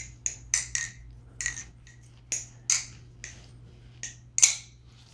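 MachineWise Mayrn Lite balisong being flipped through rollovers: about a dozen sharp, uneven clicks as the handles and blade swing on the pivots and clack together, the loudest near the end.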